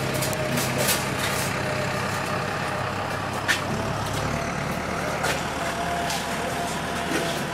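A motor running steadily, a low even hum with a faint high whine over it, broken by a few sharp clicks.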